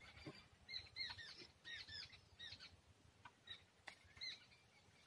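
Faint bird chirps: short, arching calls repeated in small clusters, with a couple of faint clicks among them.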